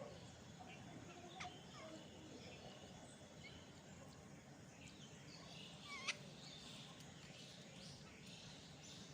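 Faint outdoor background with a few scattered short bird calls, the clearest a brief sharp call about six seconds in.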